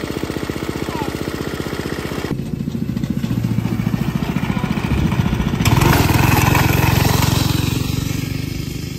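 Small 136cc single-cylinder go-kart engine idling with a rapid, even putter. After a couple of seconds it runs louder as the kart drives off, and is loudest from about six seconds in.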